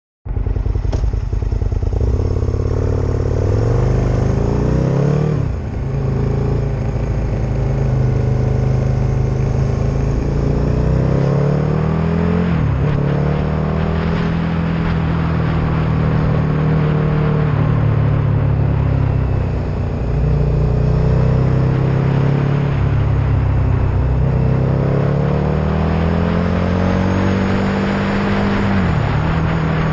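Vehicle engine under way, its pitch climbing as it accelerates and then dropping sharply at each of several gear changes, over a steady rush of road and wind noise.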